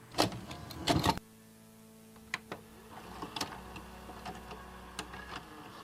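Irregular clicks and taps, several close together in the first second and then single sharp clicks every half second or so, over a faint steady hum.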